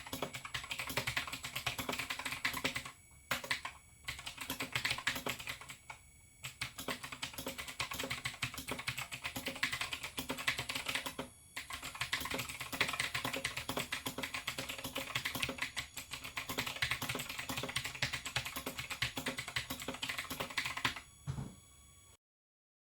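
Razer BlackWidow X Chroma mechanical keyboard with clicky Razer Green switches and ABS keycaps being typed on in a fast run of key clicks, with a few short pauses, stopping near the end.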